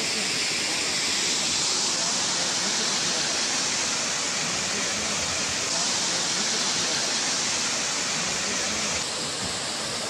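Water rushing steadily over rocks and a stone check-dam weir: a dense, even hiss of falling water, shifting slightly in tone about six and nine seconds in.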